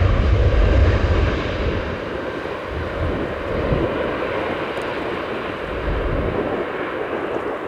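Jet airliner engine noise: a broad rumble that fades over the first two seconds and then carries on at a lower, steady level.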